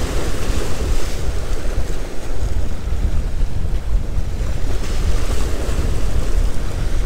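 Wind buffeting the microphone in a steady, gusting rumble, over small waves washing and breaking against the jetty's rocks.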